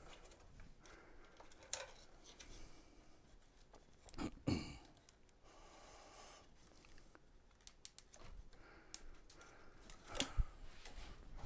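Faint hand-work sounds of a plastic cable tie being fastened around scooter wiring: scattered small clicks and rustles, with a couple of louder knocks about four seconds in and near the end.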